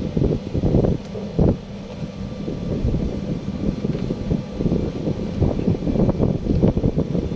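Wind buffeting the microphone on an open ship's deck: an uneven, gusting low rumble.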